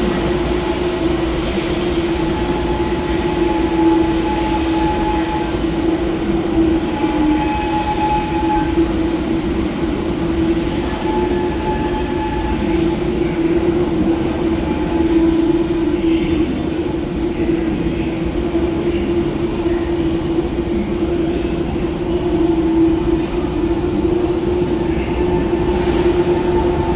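A train moving through a station with a steady, high tonal squeal from its wheels that holds throughout. A fainter, higher squeal comes and goes over a running rumble.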